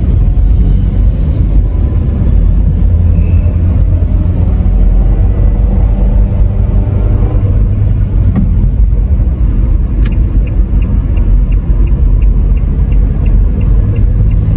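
Steady, deep road and engine noise inside a moving car's cabin. About ten seconds in, a click and then the turn-signal indicator ticking evenly, about three ticks a second.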